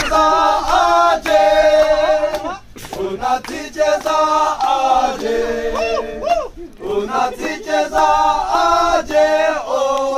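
A group of men singing together unaccompanied, holding long notes in chorus, with hand claps throughout.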